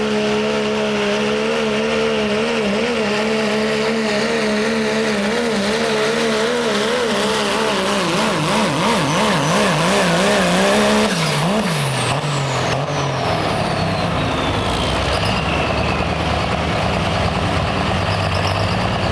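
Dodge Ram pulling truck's diesel engine running hard at full throttle under the load of a pulling sled, its engine note wavering rapidly up and down. About eleven seconds in, the revs drop off as the pull ends and the engine runs on lower, while a high whistle falls steadily in pitch as the turbocharger spools down.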